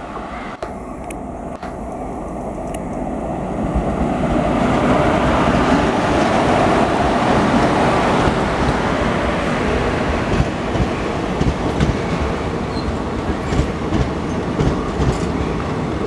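Indian Railways WAP-4 electric locomotive and its train of passenger coaches passing close by. The rumble of wheels on rail builds over the first few seconds and then holds loud, with repeated clicks of wheels over rail joints in the second half.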